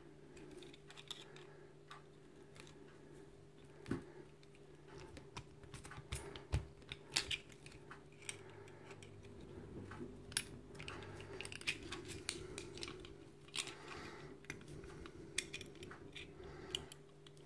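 Irregular small metallic clicks and taps of a screwdriver working at the stripped plates and pins of a cheap padlock, over a steady low hum.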